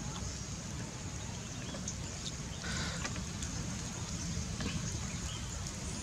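Small open campfire crackling faintly, with light wooden clicks of green sticks being laid across a grill frame over it, all under a steady low rumble.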